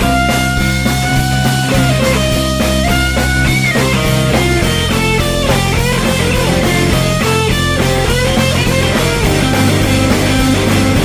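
Instrumental break of an indie rock song: a lead electric guitar plays a note-by-note solo line over driving drums, bass and rhythm guitar.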